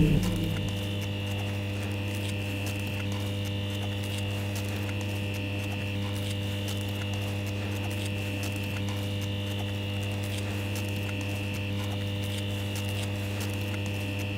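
Steady electrical hum: a strong low buzz with several higher overtones, unchanging in level, with faint fine ticking above it.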